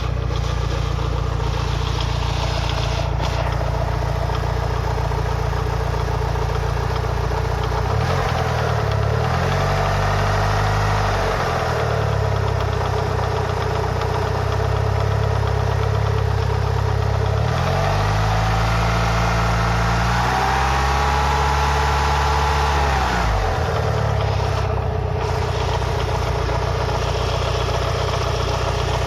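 Mitsubishi Lancer Evolution VI's turbocharged 4G63T four-cylinder engine, fully warm, idling with a knocking sound, revved up twice and falling back to idle each time. The owner can't tell whether the knock is rod knock or lifter noise.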